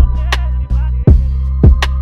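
Instrumental hip hop beat: deep sustained bass, kick drums that drop in pitch, and a sharp snare hit about every second and a half, under held synth notes with a short sliding melodic figure early on.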